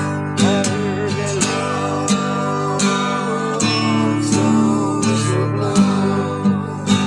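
Strummed acoustic guitar playing a country tune, with strokes every half second or so under a wavering melody line that bends in pitch.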